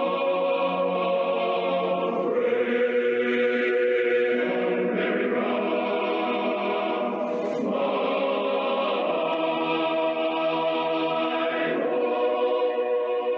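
A choir singing a slow anthem in long held chords, changing chord every few seconds.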